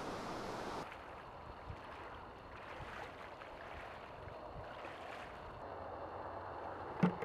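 A steady hiss of open-air background that cuts off abruptly just under a second in, followed by faint sloshing and water movement of a person wading in shallow bay water among duck decoys, with one sharp knock near the end.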